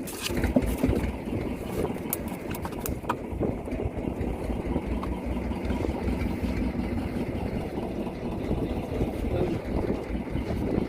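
Fishing boat's engine idling with a steady low rumble, with a few sharp clicks and knocks in the first few seconds.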